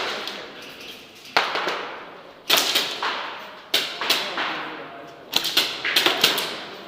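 Sharp cracks of airsoft gunfire: single shots a second or so apart, then a quicker cluster about five seconds in, each one echoing briefly off the walls of the indoor arena.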